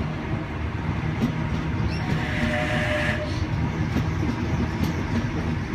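Sydney Trains OSCAR (H set) electric multiple unit rolling in alongside the platform, a steady rumble of wheels on rail. A short hiss comes about two seconds in.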